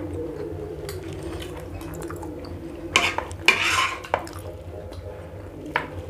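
Metal cutlery clinking and scraping on plates as macaroni is scooped up, with a few sharp clinks and a short scrape about three seconds in and another clink near the end.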